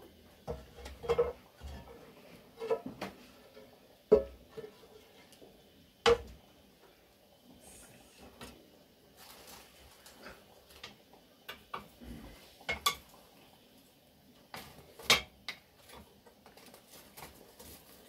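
Dishes and cutlery clinking and knocking at irregular intervals, with the sharpest knocks about four, six and fifteen seconds in.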